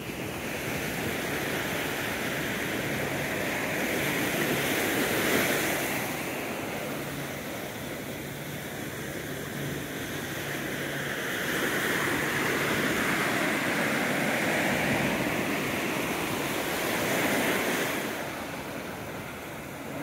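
Ocean surf breaking and washing up the beach, swelling twice and easing off in between, with some wind on the microphone.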